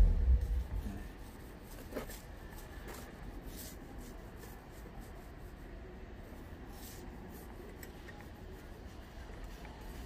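Faint soft rubbing and squishing of resin-soaked fiberglass mat being worked by gloved hands as resin is poured on, after a brief low rumble at the start.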